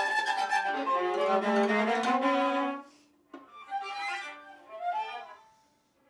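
Violin and viola playing together: a sudden loud entry of sustained, overlapping notes whose pitches slide, lasting about three seconds, followed by quieter, broken phrases that die away near the end.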